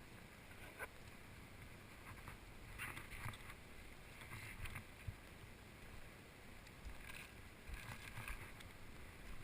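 Faint footsteps scuffing and crunching on a dirt and rock trail, in irregular clusters with small thumps.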